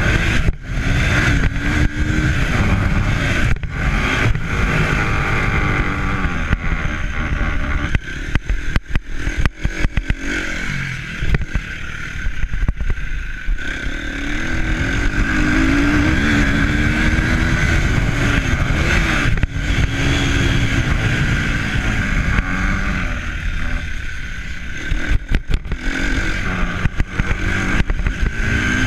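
A motor engine running with its pitch rising and falling, under heavy wind buffeting on the microphone.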